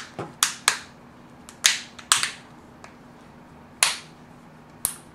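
Nexus 5's plastic back cover being pressed onto the phone, its clips snapping into place as a series of sharp clicks at uneven intervals.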